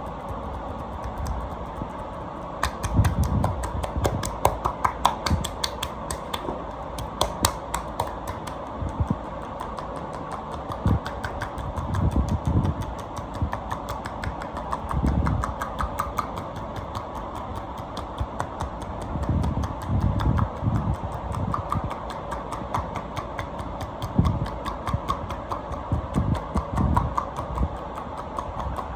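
Hands working a bare back in a deep-tissue massage: dull thumps from pressing and patting, and many small clicks, over a steady background hum.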